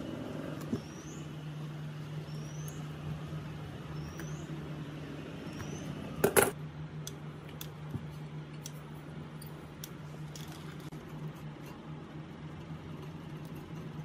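Scissors and fingers cutting and tearing the brittle, rotten paper cone out of an old Sony G3 speaker driver: scattered small clicks and snips, with one loud crackle about six seconds in, over a steady low hum.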